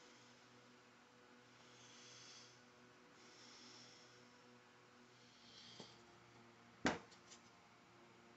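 Near silence over a faint steady hum, with a few soft rubbing sounds and one sharp click about seven seconds in, followed by a couple of small ticks.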